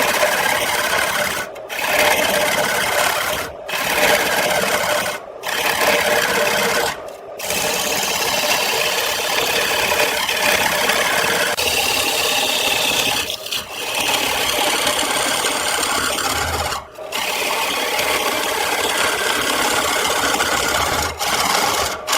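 Wood turning on a lathe while a tool scrapes and cuts it, a continuous rasping hiss. It breaks off briefly every two seconds or so at first, then runs longer between breaks.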